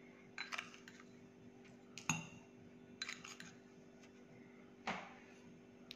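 Metal spoon scooping sugar from a glass bowl and tipping it into a drinking glass: four faint clinks and scrapes a second or so apart, over a low steady hum.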